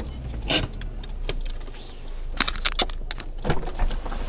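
Cabin sounds in a car standing in traffic: a low steady hum with a scatter of clicks and knocks, one about half a second in and a quick cluster of them in the middle.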